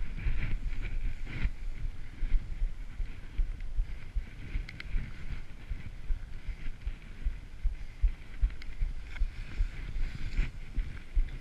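Skis hissing through powder snow in a continuous run, with frequent irregular low thuds from jolts and wind buffeting on the camera's microphone and a few sharp clicks.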